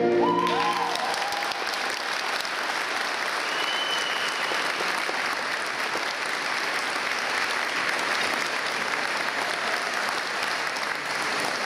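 The orchestral programme music stops just after the start, and audience applause follows and keeps on at an even level.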